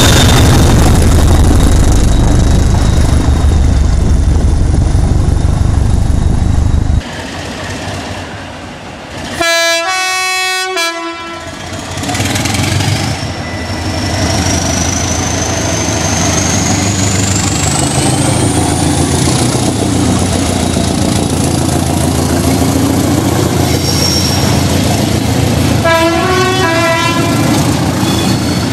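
Train horn sounding a blast of a second or so about ten seconds in, then a train running past with a high squeal that rises in pitch, and a second, shorter horn blast near the end. Before that, a heavy low rumble cuts off abruptly about seven seconds in.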